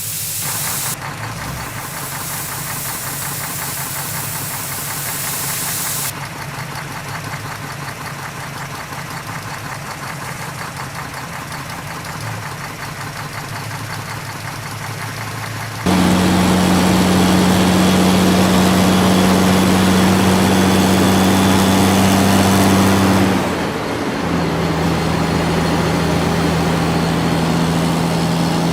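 Heavy-machinery engines running, in several cut-together shots: a steadier, quieter engine sound first, then from about 16 seconds in a much louder engine with a strong steady hum, which dips briefly near 23 seconds and settles a little lower in pitch.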